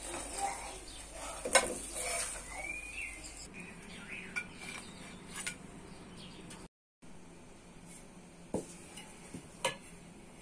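Metal kitchen utensils clinking and scraping on cookware, with a light sizzle underneath. One sharp clink comes about a second and a half in, and two more come near the end.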